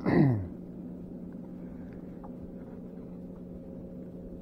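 A man's short vocal sound sliding steeply down in pitch at the start, followed by a steady low hum with a few faint ticks.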